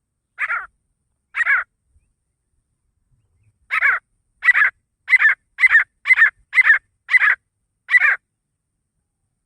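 Grey francolin (desi teetar) calling. Two single harsh calls come first, then after a pause a run of about eight calls at roughly two a second.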